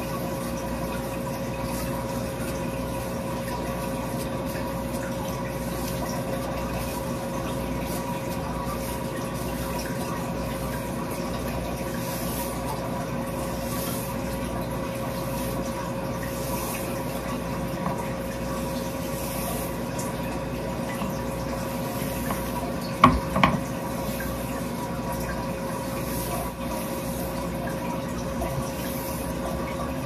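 Steady background hum and hiss with a constant tone, unchanging throughout, with two sharp knocks close together about 23 seconds in.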